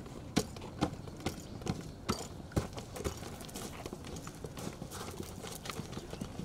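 Hard-soled boots of cadets marching in step on concrete steps and ground: sharp footfalls about two a second, growing fainter in the second half.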